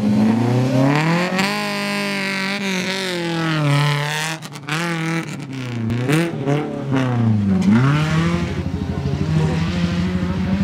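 Dirt-track rally car engine revving hard, its pitch climbing and then dropping several times as it works through the gears. In the last few seconds it settles into a steadier, fast-pulsing drone.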